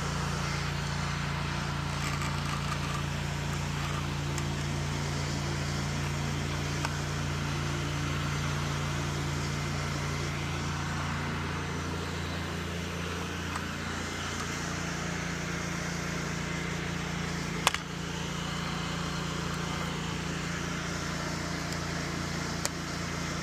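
Pressure washer's engine running steadily under the hiss of the spray. Its pitch steps up slightly about halfway through, and there is one sharp click near 18 seconds in.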